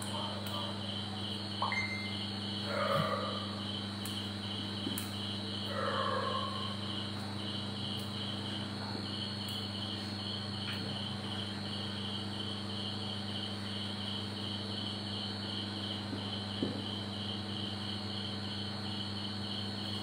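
A cricket chirping steadily, about three chirps a second, over a low steady electrical hum. A few short squeaks of a marker writing on the whiteboard come in the first few seconds.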